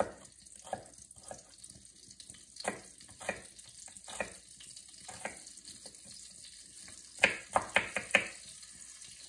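Chef's knife chopping an onion on a wooden cutting board: scattered single cuts, then a quick run of about five chops near the end, the loudest of them.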